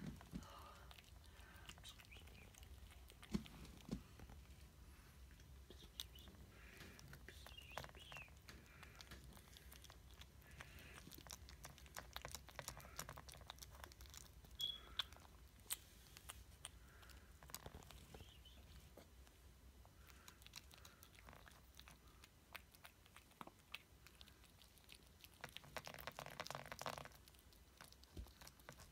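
A cat eating wet food from a can: faint, irregular clicks and smacks of chewing and licking, with a slightly louder rustling patch near the end.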